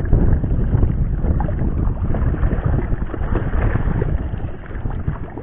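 Wind buffeting the microphone over water lapping against a small boat, with scattered small knocks; the noise eases a little near the end.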